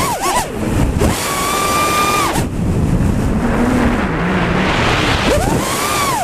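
FPV quadcopter's brushless motors and propellers whining, the pitch shooting up and holding high, then dropping away several times as the throttle is punched and cut through flips, with air rushing over the microphone.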